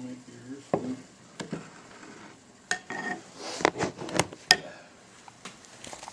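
Kitchenware clinking and clattering: a run of sharp knocks of dishes, a pot and utensils, busiest from about two and a half to four and a half seconds in, one clink ringing briefly.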